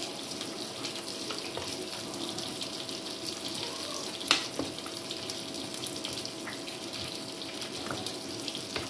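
Steady sizzling hiss of beef patties frying in oil on a tawa, with a metal spoon clicking and scraping against a ceramic plate as shredded cabbage and mayonnaise are mixed; one sharper clink about four seconds in.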